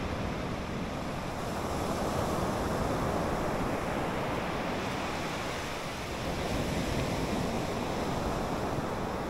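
Small waves breaking and washing up a sandy beach: a steady surf hiss that swells twice as waves come in.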